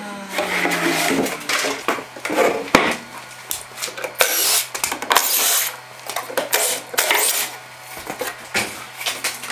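Wooden slab and boards being handled on a metal-topped workbench: an irregular run of knocks, thuds and scraping rubs, with one sharp knock about three seconds in.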